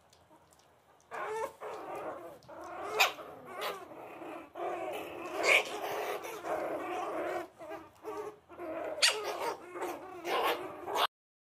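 Puppies growling and yapping as they play-fight, with several sharp louder yaps. It starts about a second in and cuts off suddenly near the end.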